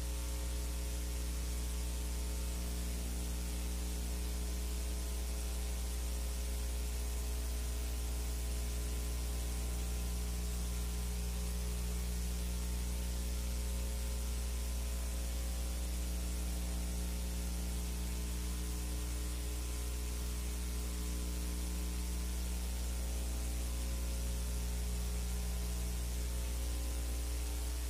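Steady electrical mains hum with a ladder of overtones, under a constant hiss: background noise on the soundtrack of a silent film transfer, with no other sound.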